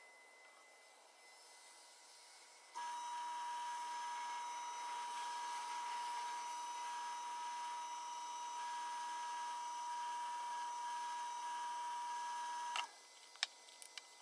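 Wood lathe switched on about three seconds in, running with a steady high-pitched motor whine while a turned bowl spins for sanding, then cut off abruptly about ten seconds later. A few light clicks follow near the end.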